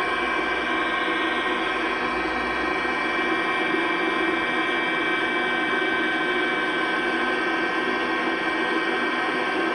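A steady, sustained drone of many held tones, in the manner of a gong swell or ambient soundtrack pad, playing through a television's speaker.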